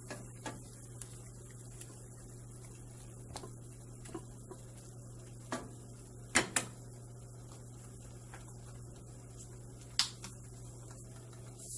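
Wooden spatula knocking against a stainless-steel frying pan while ground pork is stirred: a few light knocks, two sharper taps close together about six and a half seconds in, and a louder knock near ten seconds as the spatula is set down on a plate. A low steady hum runs underneath.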